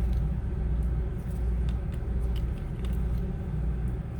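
Steady low background rumble, with a few faint, sharp clicks of a small screwdriver working the tiny Phillips screws inside a phone.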